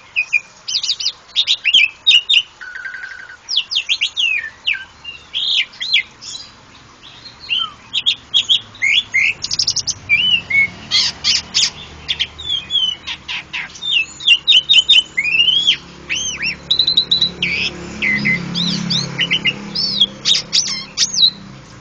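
Pied starling (jalak suren) singing a long, varied song: clear whistles, rising and falling slurred notes and fast harsh chattering phrases, one after another with short pauses.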